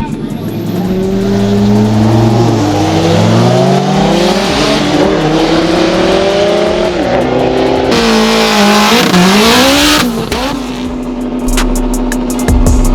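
Car engine revving hard, its pitch climbing and then dropping several times as if through gear changes, with a hiss over it in the middle. For the last couple of seconds it holds a steady drone.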